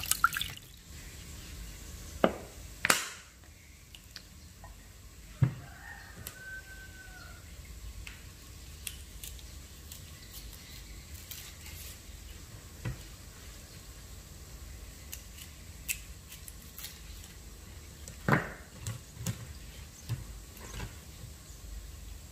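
Water splashing in a metal bowl, stopping within the first second. Then a faint steady low hum, with a few sharp knocks and clicks and a short chirp about six seconds in.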